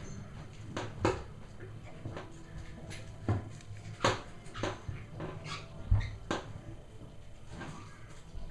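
Three-week-old Cavalier King Charles Spaniel puppies squeaking and whimpering in short, scattered bursts, about ten of them, as they crawl over one another.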